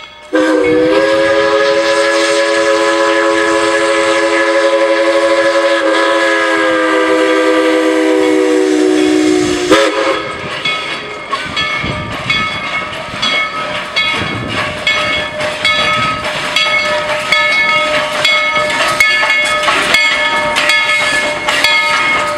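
Narrow-gauge steam locomotive No. 190, a Baldwin 4-6-0, sounding one long chime-whistle blast of several notes held together for about ten seconds. Then it rolls in slowly with its bell ringing over the clank and knock of the running gear.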